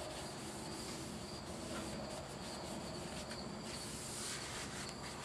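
Steady background chorus of insects, a constant high-pitched trill, with faint strokes of a rag wiping the plastic paddle blade.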